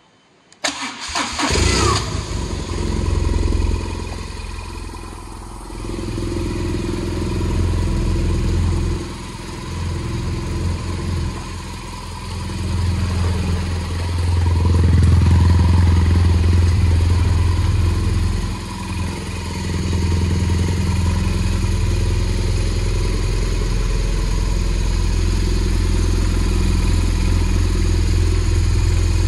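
BMW R1200GS boxer-twin engine cranked on its electric starter and catching about half a second in, with a brief rising whine as it spins up. It then keeps running, its level rising and falling.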